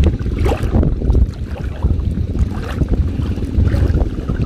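Wind buffeting the microphone in a steady low rumble over choppy floodwater, with water lapping and splashing.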